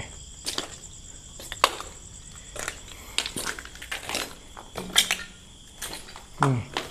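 Footsteps crunching over rubble and undergrowth, about one a second, over a steady high chirring of crickets and other night insects.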